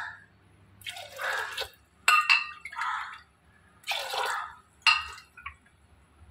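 Water splashing in short pours into a pressure cooker holding soaked dal, about five separate splashes. Two of them come with a sharp clink of a metal vessel, about two and five seconds in.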